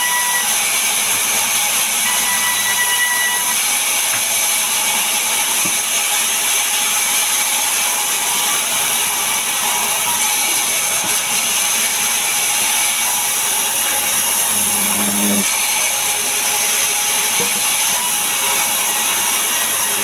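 Sawmill band saw running and cutting timber: a steady, high-pitched hiss with a thin whine from the blade.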